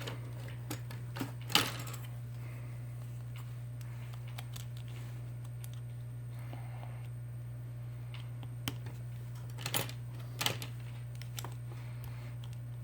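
A few sharp clicks and taps from handling the phone and its small parts on the workbench, the loudest about a second and a half in and a cluster near the end, over a steady low hum.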